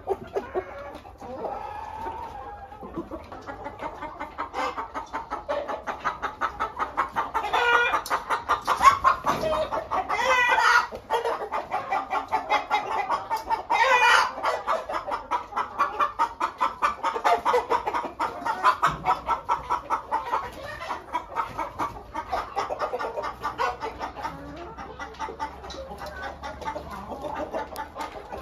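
A flock of chickens clucking busily and continuously, with three louder, longer calls standing out roughly a third of the way and halfway through.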